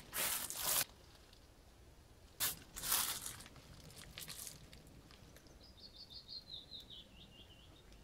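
Crunching scuffs of footsteps on gritty debris, twice, followed near the end by a songbird's faint trill of short notes stepping down in pitch.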